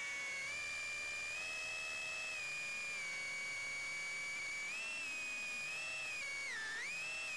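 Tiny whoop quadcopter's motors and propellers whining at a high pitch, the pitch rising and falling with throttle, with a brief sharp dip and recovery near the end.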